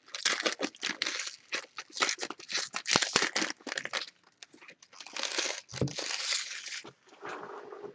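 Plastic wrapping crinkling and tearing in irregular bursts, as the shrink wrap is pulled off a sealed box of trading cards.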